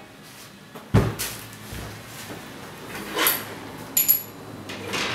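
A steel-framed window being unlatched and opened: a sharp clunk about a second in, then more knocks and rattles, with a brief metallic squeak about four seconds in.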